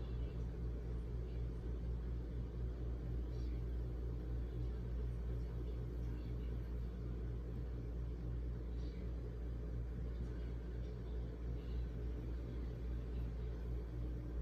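Steady low rumble with a hum, even throughout, with a few faint soft clicks a few seconds apart.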